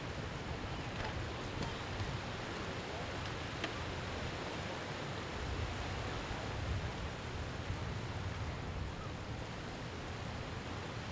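Windy beach ambience: steady wind rumbling on the microphone, with the wash of small lake waves.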